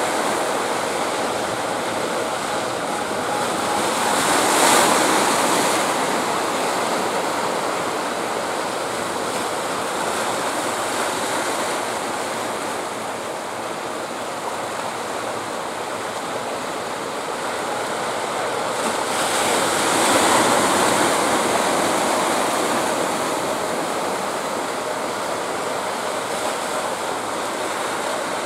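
Sea surf: a steady wash of breaking waves, with a louder wave breaking twice, some fifteen seconds apart.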